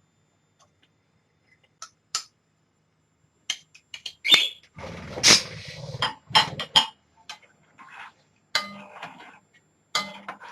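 Kitchen cookware and utensils clinking and knocking: a string of irregular sharp clinks and knocks, busiest in the middle, with a short stretch of rustling noise about five seconds in.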